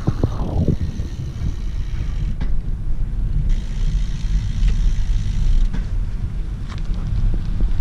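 Wind buffeting the microphone, a loud low rumble that rises and falls, with no speech.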